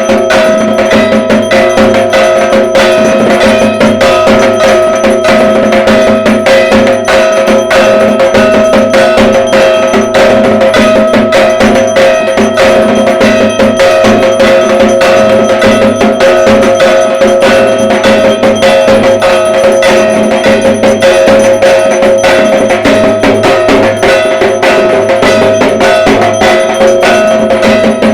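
Dhak drums beaten in a fast, unbroken rhythm of dense strokes, with a steady metallic ringing that goes on underneath.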